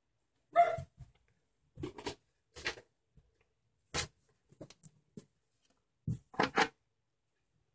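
Handling noises: a series of short rustles and light knocks of paper and hands on a wooden tabletop, as an index card is put away and a sheet of paper is laid flat on the table.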